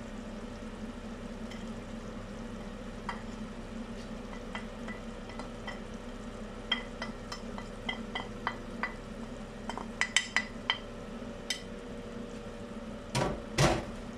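A metal spoon taps and scrapes spice powders off a plate into a stainless steel saucepan, making a run of light clicks and then a louder clatter near the end. Underneath, onions sizzle low in the oil.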